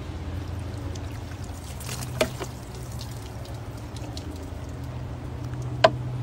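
Water poured from a plastic mug over a person's body, trickling and splashing, under a steady low hum. Two sharp clacks, about two seconds in and near the end, are the loudest sounds.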